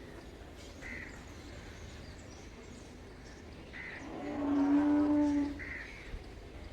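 A cow mooing once, a single steady call lasting about a second and a half, starting about four seconds in.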